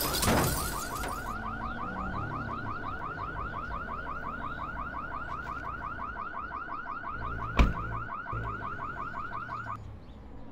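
Car alarm sounding in a rapid, even, warbling chirp that stops shortly before the end. A single sharp thump sounds about two-thirds of the way through.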